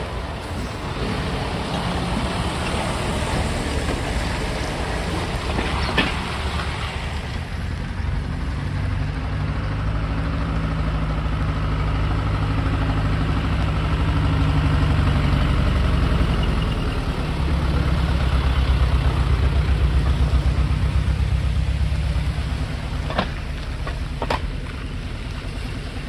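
Heavy truck diesel engines running, one growing louder in the middle and loudest a little past halfway before easing off. There is a hiss over the first few seconds and a few short sharp clicks, one about six seconds in and two near the end.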